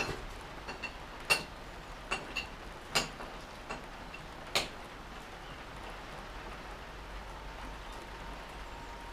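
Sharp metal clinks and taps, about eight of them over the first five seconds, from a hand tool working the toolpost of a Mk1 Edgwick metal lathe while the cutting tool is adjusted. A faint steady whine comes in near the end.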